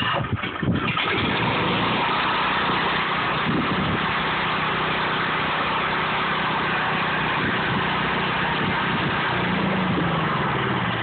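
Small portable generator's engine running steadily just after being started, a little uneven for about the first second before it settles.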